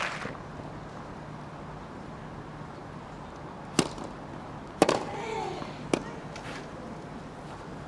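Three sharp tennis ball impacts about a second apart on a hard-hitting court, the second followed briefly by a player's grunt, over a low steady background hum.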